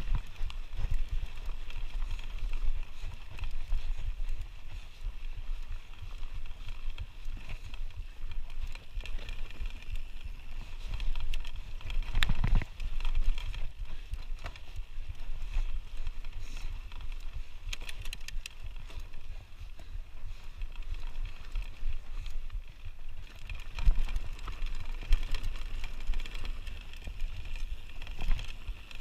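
Canyon Spectral mountain bike riding down rocky singletrack: tyres rolling over dirt and loose stones and the bike rattling, over a constant low rumble of trail vibration and wind on the camera. Sharper knocks come about twelve seconds in and again around twenty-four seconds.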